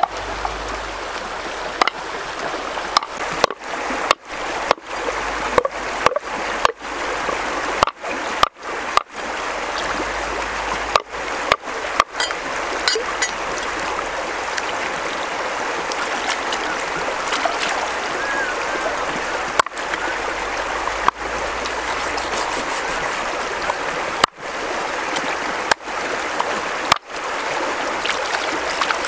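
A shallow rocky stream rushing steadily. The water noise is broken by many brief gaps, each with a sharp click.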